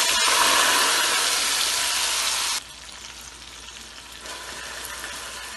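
Soaked rice and moong dal hitting hot oil in a steel pot, sizzling loudly. About two and a half seconds in the sizzle drops off abruptly to a softer frying hiss as a wooden spatula stirs the grains.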